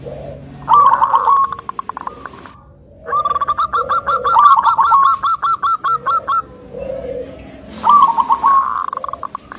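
Zebra dove (perkutut) cooing in its rapid staccato song. A short phrase comes about a second in, then a long run of quick repeated coos, about five a second, for some three seconds, and another short phrase near the end.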